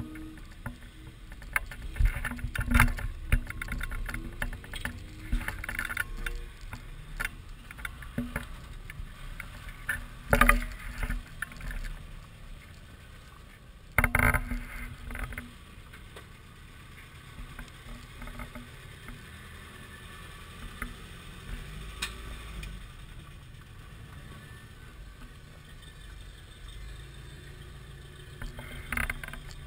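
Lifted four-wheel-drive Toyotas crawling slowly over rough dirt and rock: a low engine rumble under irregular knocks and clunks from tyres and suspension working over the ground, with a few louder thumps.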